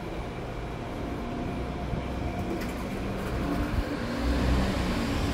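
Low, steady rumble of city street traffic, growing louder about four seconds in.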